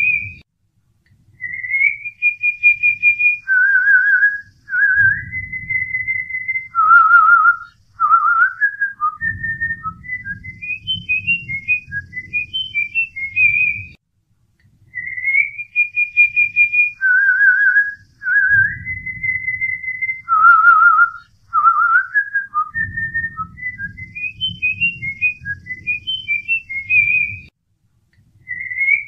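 A whistled tune with held notes, warbling trills and quick little runs over a soft low pulsing accompaniment. The same phrase of about 13 seconds plays twice.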